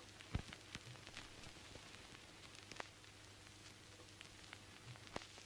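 Near silence: faint hiss and low hum with scattered small clicks and crackles.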